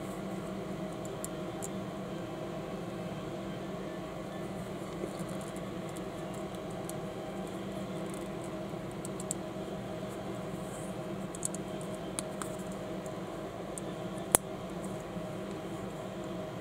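Small plastic building bricks being handled and pressed together: faint scattered clicks and one sharp snap about 14 seconds in, over a steady hum of room noise.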